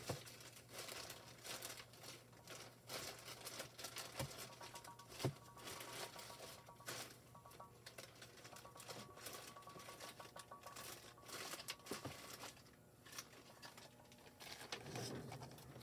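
Paper and craft foil sheets rustling and crinkling as they are handled, with scattered light taps and clicks, over a faint steady low hum.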